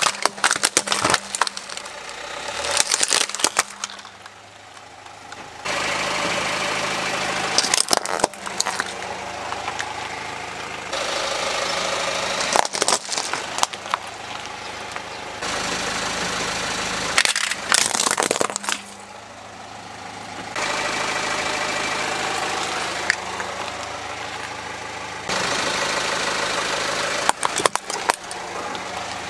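Hard plastic toys cracking and crunching under a car tyre, in about six separate bursts of sharp snaps. The car's engine runs steadily between them.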